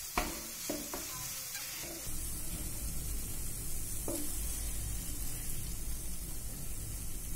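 Grated-carrot halwa sizzling in a nonstick frying pan while a wooden spatula stirs, presses and scrapes it, with a few short scrapes in the first second or so and another about four seconds in as it is scooped out of the pan.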